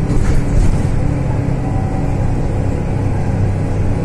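Mercedes-Benz O530 Citaro city bus under way, heard inside the cabin over the ZF automatic gearbox: a steady low engine and driveline drone with road rumble. The drone drops to a lower pitch near the end.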